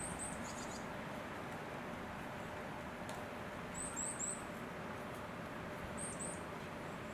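Small bird chirping: short, very high chirps in quick groups of two or three, heard three times over a steady background hiss.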